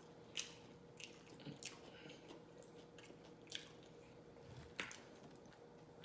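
Faint chewing with about half a dozen short mouth smacks, spaced irregularly; the sharpest comes just under half a second in.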